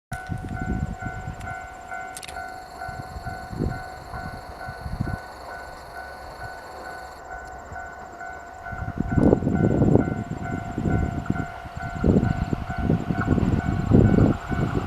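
Japanese level crossing warning bell ringing steadily, a repeating electronic ding, while the limited express Tsugaru approaches. About nine seconds in, the train's rumble swells, and near the end its wheels start clattering rhythmically over the rail joints.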